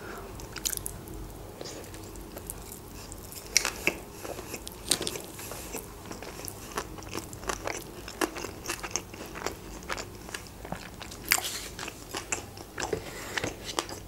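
Close-miked chewing of a mouthful of sushi roll: a steady run of wet mouth clicks and soft crunches, with a few sharper crunches about four, five and eleven seconds in.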